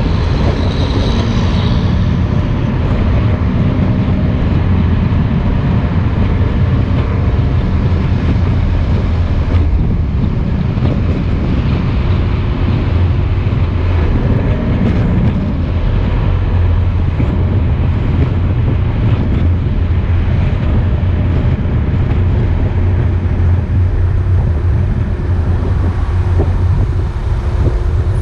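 Steady road noise heard inside a moving car: engine and tyre rumble with a low drone, easing slightly near the end as the car slows.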